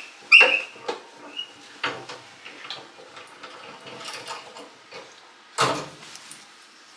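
Door-locking handle of a Tuttnauer autoclave being turned to unlock the chamber: metal clicks and short squeaks, then a louder clunk about five and a half seconds in as the door comes open.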